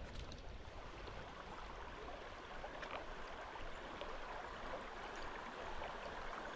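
Creek water running steadily, with a couple of faint ticks about three and four seconds in.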